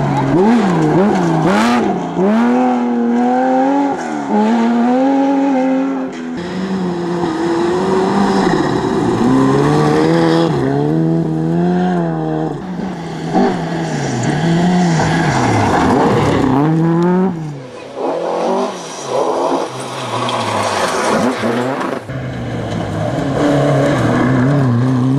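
Historic rally cars passing one after another on a loose gravel stage, the first an early Porsche 911. Engines rev hard and fall away again and again through gear changes and lifts, over a hiss of gravel and tyres.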